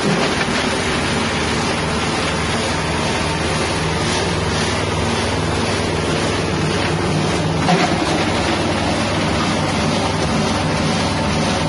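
Small 6.5 hp petrol engine running steadily, belt-driving a hammer-type spice grinding mill, with a brief knock about two-thirds of the way through.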